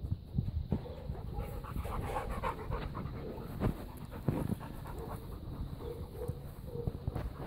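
A young black dog panting close to the microphone.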